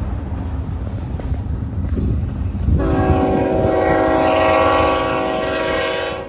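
Freight train rolling past with a low rumble of hopper cars, then about three seconds in a Union Pacific GE locomotive's air horn sounds one long, steady, loud blast that cuts off suddenly near the end.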